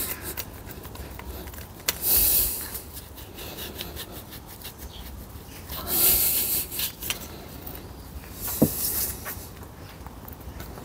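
Gearbox parts being handled during a teardown: three short rubbing and scraping bursts with scattered small clicks and knocks.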